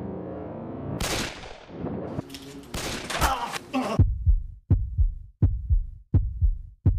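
Heartbeat sound effect in a film soundtrack: deep paired thumps, one lub-dub about every three-quarters of a second, beginning about four seconds in. Before it there is a low droning chord, then from about a second in a harsh, noisy burst of cracks and crashes.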